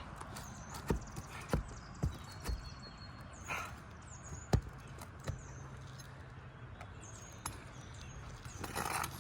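A hand tool knocking and prying at roofing nails under asphalt shingles to work them loose: sharp, irregular knocks about half a second to a second apart, thinning out after the first few seconds.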